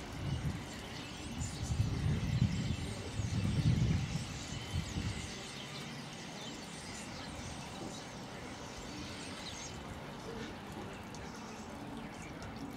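A flock of common starlings chattering with many overlapping chirps and whistles, which thin out about ten seconds in. A low rumble sits under the first five seconds.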